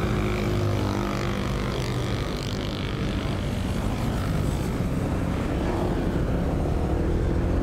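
Motor scooter's engine running steadily as it rides along the road: a low, even engine hum with road and wind noise over it.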